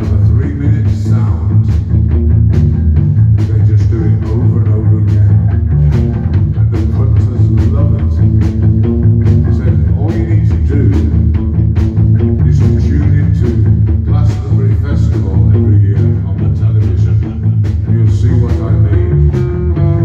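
Live rock band playing loud: a drum kit keeping a steady beat under electric guitars, with a man singing into the microphone.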